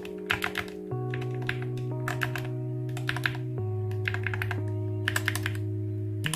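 Keys of a Skyloong GK61/SK61 60% mechanical keyboard being typed in quick clusters of clicks and clacks, with short pauses between runs. Background music with sustained chords plays under the typing.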